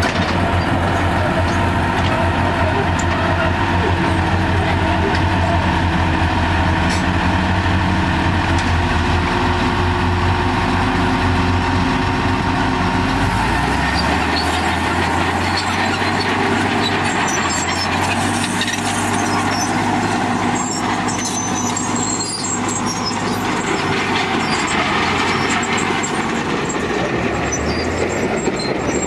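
Heavy diesel engines of a tracked excavator-dozer and a dump truck running under load as the overturned truck is righted. The low engine note changes and drops about halfway through, and scattered knocks and clanks follow.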